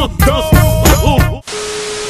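Upbeat background music with a heavy beat and a bending melodic line, cut off about one and a half seconds in by a burst of TV static hiss with a steady beep tone.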